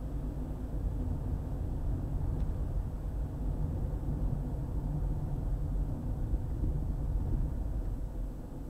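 Car driving along a highway: a steady low rumble of tyre and engine noise.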